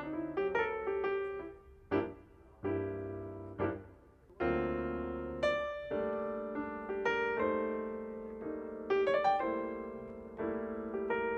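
Background piano music: notes and chords struck one after another, each fading out.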